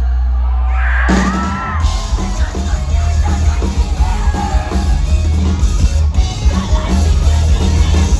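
Post-hardcore rock band playing live through a PA: a held low bass note gives way about a second in to the full band coming in with drums and distorted guitars, and vocals yelled over the top.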